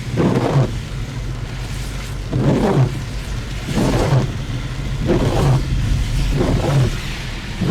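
Car windshield wipers sweeping back and forth in the rain, five regular swishes about a second and a half apart. Under them runs the steady low rumble of the car driving.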